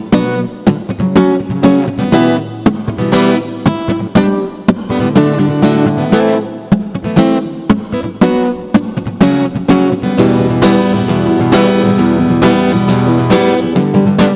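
Acoustic guitar strummed in a steady rhythmic chord pattern, without singing.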